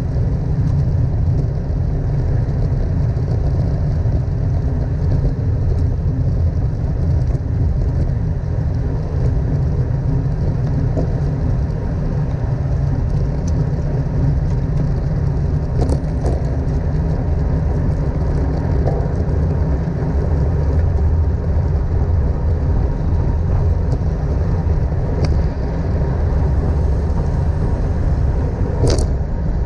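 Wind buffeting the action-camera microphone and road noise from a road bike ridden at race speed, a steady low rumble throughout. A few short sharp clicks break in around the middle and near the end.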